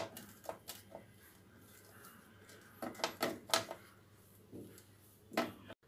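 Flour and ghee being rubbed together by hand in a glass bowl: faint rustling with scattered light clicks and knocks of hand and bowl, a quick cluster of them about three seconds in.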